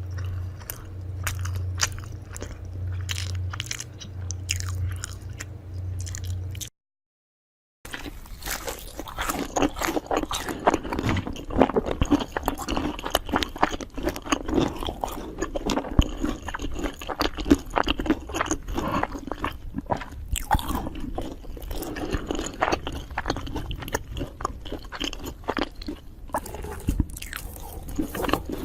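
A person biting and chewing crunchy food: dense, irregular crunches and mouth sounds. About seven seconds in the sound cuts to a second of dead silence, then resumes as a busier run of crunching.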